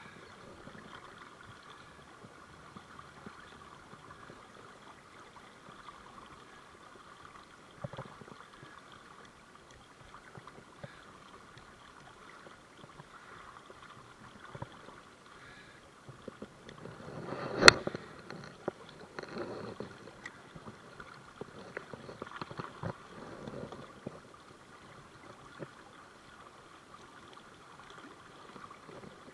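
River water flowing steadily, with one sharp click about two-thirds of the way through, followed by a few seconds of uneven rustling.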